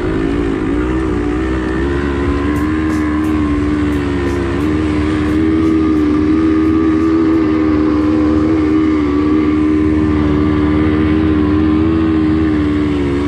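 Quad bike (ATV) engine running at a fairly steady speed while being ridden over sand, heard close up from the camera on its handlebars. The engine's pitch wavers slightly, dipping once about half a second in and again around four and a half seconds in, without any hard revving.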